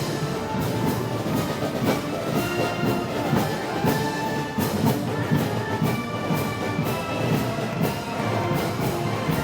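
Festival brass band playing, trombones and trumpets over percussion that keeps a steady beat of about two strikes a second.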